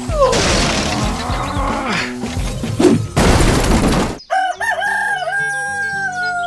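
Background music and a noisy mix of effects, ending in a burst of noise about three seconds in. Then a rooster crows: one long call with a few bends and a long held note that runs to the end.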